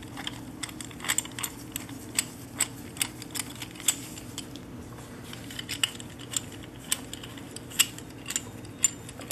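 Scattered sharp clicks and light knocks, a few each second, as a screw-type caliper piston compressor tool is handled and fitted against a brake caliper, over a steady low hum.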